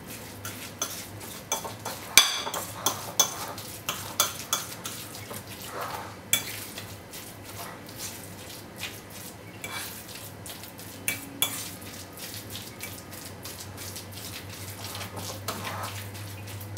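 Metal fork stirring and mashing a thick fish-and-egg paste in a ceramic bowl, clicking and scraping against the bowl in irregular strokes, the sharpest clink about two seconds in.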